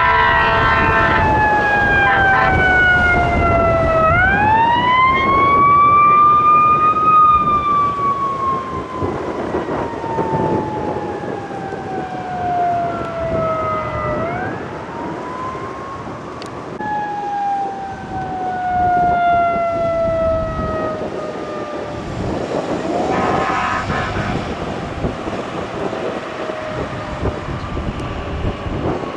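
Fire engine sirens wailing, each tone falling slowly over several seconds and then swept quickly back up, with horn blasts near the start and again about 23 seconds in. A second engine's siren takes over about two-thirds of the way through, over road traffic.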